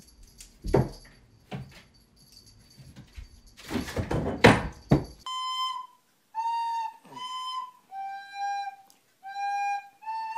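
Recorder played, six separate held notes that step up and down in pitch, starting about halfway through. Before that, a few scattered knocks and rustles.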